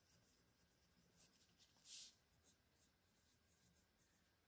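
Faint scratching of a pen writing on paper in a few short strokes, the loudest about two seconds in.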